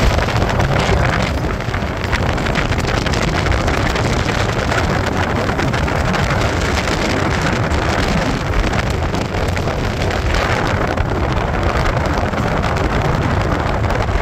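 Steady rush of a moving vehicle's road noise and wind, with wind buffeting the microphone.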